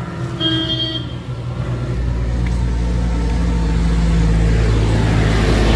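Tractor's diesel engine running, speeding up about two seconds in and holding at the higher speed.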